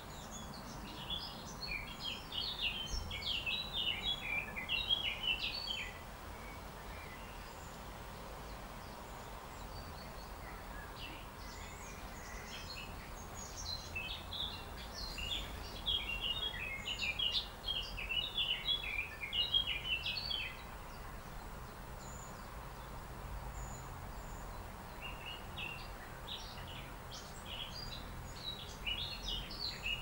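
Birds twittering in rapid runs of short high chirps, in three spells: about a second in, again through the middle, and near the end. Underneath is a steady low background noise.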